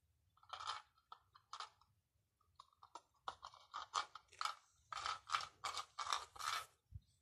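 A cat eating flan out of a small metal cup: a run of short chewing and licking noises, a few spaced out at first, then about three a second through the second half.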